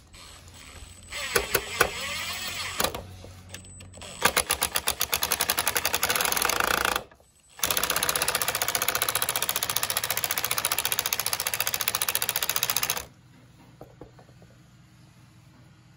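Makita cordless brushless impact driver driving a long wood screw through a chair leg into the end of a stretcher: a short spin of the motor about a second in, then rapid impact hammering as the screw bites, a brief pause, and a second long run of hammering that stops about 13 seconds in as the screw head seats.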